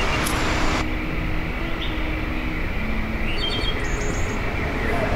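Steady rushing outdoor noise, with a few short, high bird chirps about three and a half to four and a half seconds in.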